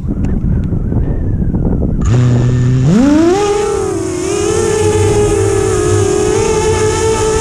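The 6-inch quadcopter's four T-Motor F40 Pro 2200kv brushless motors spinning GemFan 6030 props, heard from the onboard camera. After two seconds of low rumble with a few clicks, they start with a low hum at idle. About a second later the whine rises steeply as the quad takes off, then holds a high pitch that wavers slightly with throttle.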